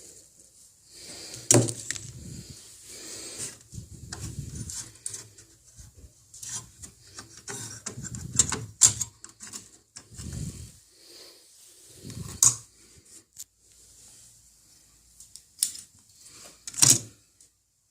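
Handling noise from removing and cleaning desktop RAM modules: several sharp clicks with stretches of rubbing in between.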